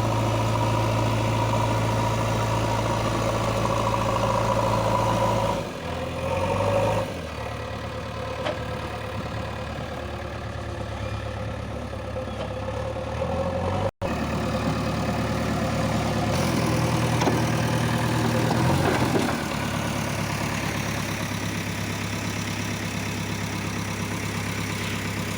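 Heavy diesel engine running steadily at a low, even note. It shifts pitch and level a few times, with a louder stretch past the middle. The sound breaks off for an instant about halfway through.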